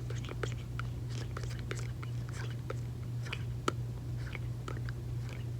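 Close-miked gum chewing: irregular wet clicks and smacks of the mouth and gum, a few a second, with one sharper pop midway, over a steady low hum.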